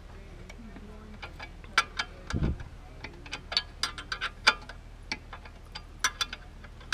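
Irregular sharp clicks and clinks of hand tools on metal while a four-wheeler's chain adjuster is worked on, with a dull thump about two and a half seconds in.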